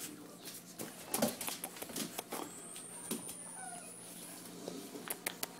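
Boxer puppy play-wrestling with a hand on a hardwood floor: scattered clicks, scuffs and taps of claws, paws and mouthing, the loudest about a second in.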